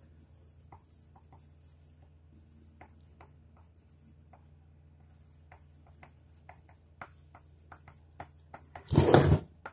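Pen writing on paper: faint scratches and light ticks of the tip as the letters of a heading go down. Near the end comes a short, loud rustle of the sheets being handled, lasting about half a second.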